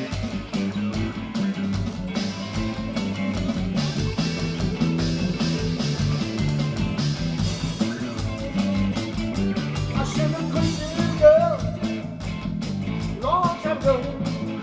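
Blues-rock band playing an instrumental stretch with electric guitar, bass and drums in a steady, repeating groove. From about ten seconds in, a lead line with sliding, bending notes comes in over it.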